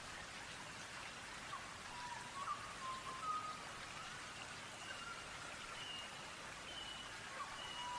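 A steady hiss with short, high whistled notes, some with a quick upward flick; in the second half, higher short notes repeat about once a second.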